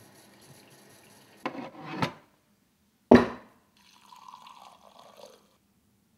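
Liquor poured into a cut-glass tumbler, a splashing trickle for about a second and a half near the end. Before it come a short rising scrape and a single sharp knock, the loudest sound.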